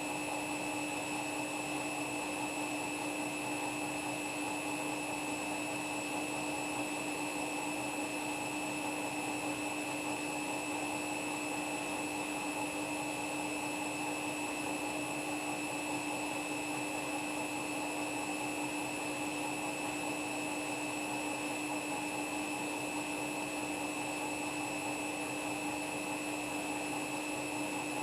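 Washing machine in a spin cycle, spinning at a steady speed: a constant whine over an even rushing noise.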